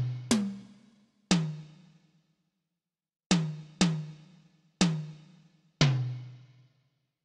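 A tom drum struck six times at an uneven pace. Each stroke gives a low pitched note that rings out and fades over about a second.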